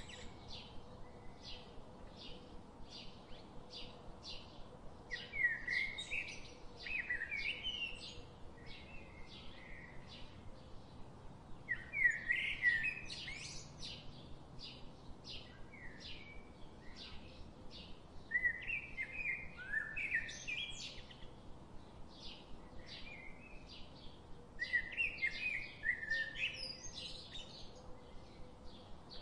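Birds chirping: short high chirps repeat about twice a second, and a louder warbling phrase breaks in every six seconds or so.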